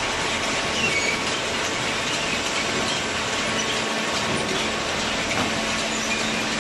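Steady mechanical running noise with a faint low hum, as of a hydraulic cardboard baler in operation.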